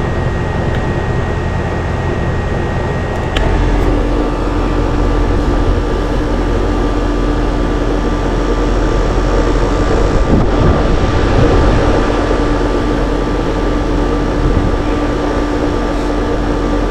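Outdoor air-conditioner condensing unit running with a steady hum and fan noise. About three seconds in there is a click, after which a lower hum grows louder and stays.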